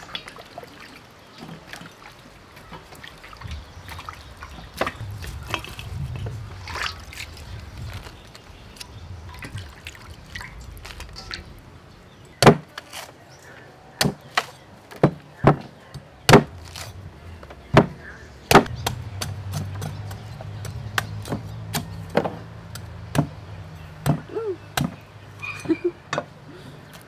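A cleaver hacking into a young green coconut on a wooden chopping block: about seven sharp, loud chops roughly a second apart, then lighter taps as the top is cut open.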